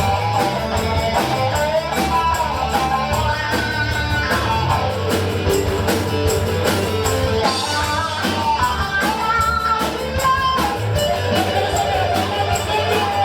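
Band music led by guitar, with a steady beat.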